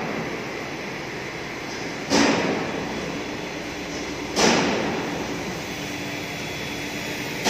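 Yantrang VX-400 vertical machining centre at work: a steady hum, broken about every two and a quarter seconds by a sudden loud burst that fades over about a second.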